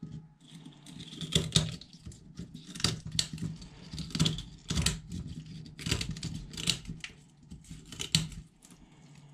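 Kitchen scissors cutting through the spiny shell of a raw sea urchin: irregular crisp snips and crunches, roughly two a second.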